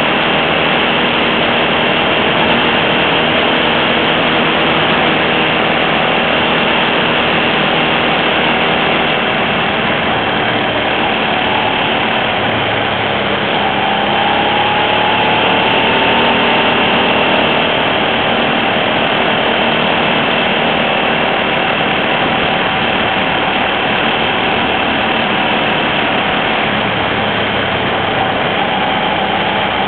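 Hyosung GT650 Comet motorcycle's V-twin engine running steadily at moderate revs, chugging through the corners, mixed with heavy wind and road noise. The engine note rises a little about halfway through, then settles.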